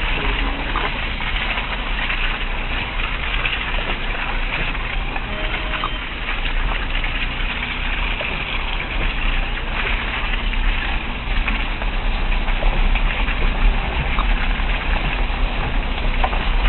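A vehicle driving along a dirt track, its engine running steadily under constant road and wind noise on the microphone, a little louder in the second half.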